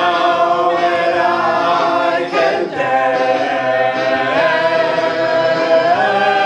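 A small group of voices singing together without accompaniment, holding long notes and moving to a new note every couple of seconds.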